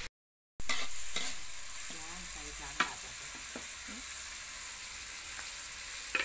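Green papaya and rebon shrimp stir-frying in a metal wok: a steady sizzle with a metal spatula scraping and stirring several times. The sound drops out for a moment at the start.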